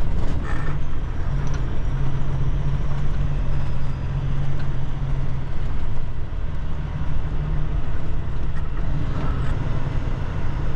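Semi truck's diesel engine running at low road speed, heard from inside the cab: a steady low rumble whose hum swells and eases a little as the driver works the throttle.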